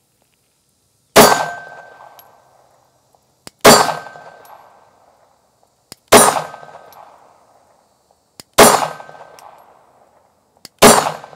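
Glock 19 9mm pistol, fitted with a Lone Wolf AlphaWolf drop-in barrel, firing five single full-metal-jacket shots about two and a half seconds apart. Each shot is followed by a ringing tail under a metal-roofed shooting shed. This is slow test fire to check the new barrel.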